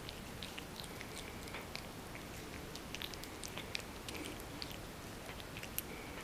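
A cat chewing and biting a piece of melon: irregular quick little clicks and smacks, several a second.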